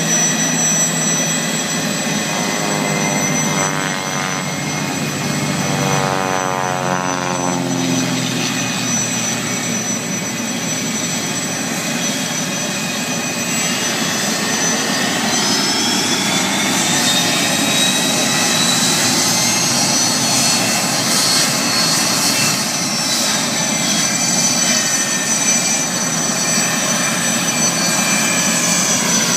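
Aircraft turbine engines running with a steady high whine; about a third of the way in, one spools up with a rising whine.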